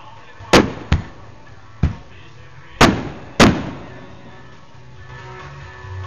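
Aerial fireworks bursting overhead: five sharp bangs in the first three and a half seconds, each with a short echoing tail, the last two close together.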